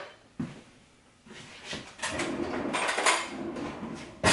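Kitchen cutlery being fetched and handled: a knock about half a second in, then rattling and clinking of a metal spoon. A sharp clink comes at the very end.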